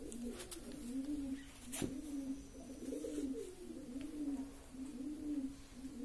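A pigeon cooing over and over, a low warbling coo repeating a little more than once a second. A few sharp clicks come in the first two seconds, the loudest a little under two seconds in.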